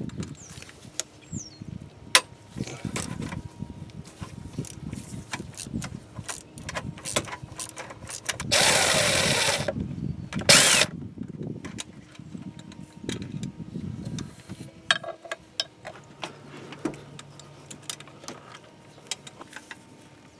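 Quarter-inch ratchet working an 8mm socket on a long stack of extensions, clicking and clinking as the thermostat-housing bolts are loosened. About halfway through come two loud bursts of noise, the first lasting about a second.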